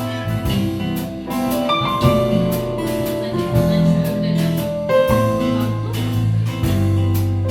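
Instrumental break of a band song with no vocals: keyboard chords over held bass notes and a steady drum-kit beat.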